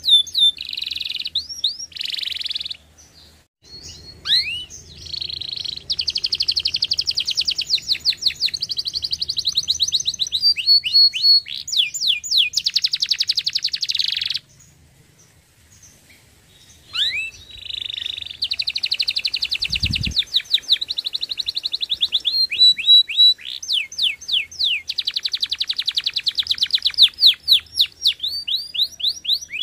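Domestic canary singing: a long song of fast rolling trills and rising whistled notes, broken by two short pauses. A brief low thump about twenty seconds in.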